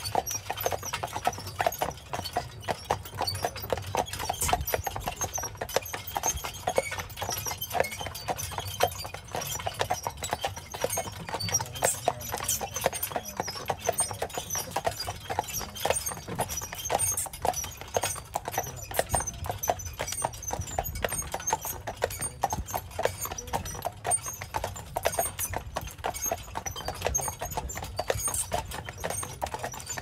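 A pair of carriage horses walking on a paved trail, their hooves clip-clopping in a steady, continuous run of overlapping strikes.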